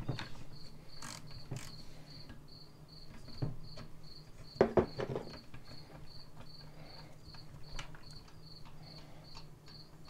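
Scattered metal clicks and knocks from a ratchet and spark-plug socket as a chainsaw's spark plug is loosened and lifted out, with the loudest knock a little before halfway. Behind them a steady high chirping, about three a second, and a low hum.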